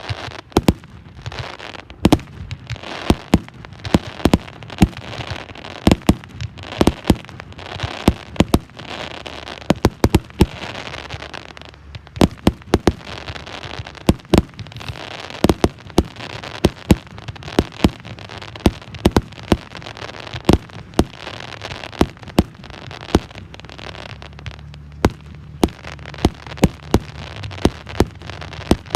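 Fireworks display: a rapid, irregular barrage of sharp bangs, often several a second, over continuous crackling.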